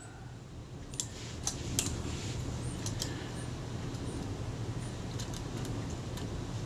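Light, scattered clicks and taps of a small metal camera being handled and turned over on a bench, with a scalpel set against the base-plate leatherette, most of them in the first few seconds. A steady low hum runs underneath.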